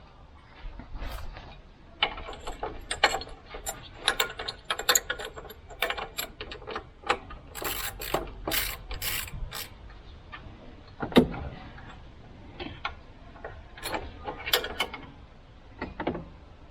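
Ratchet spanner clicking in short irregular runs as a nut on a tractor's voltage regulator is worked loose, with one sharper knock about eleven seconds in.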